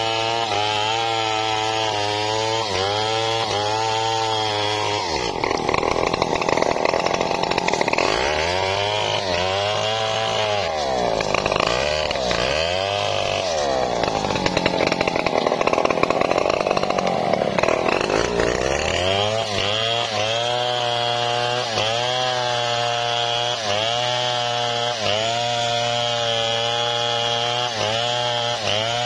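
Large Stihl two-stroke chainsaw cutting through a log. About five seconds in, its pitch starts swinging up and down for a long stretch, as the saw is revved while held out of the wood. It then settles back to a steady note as it cuts again.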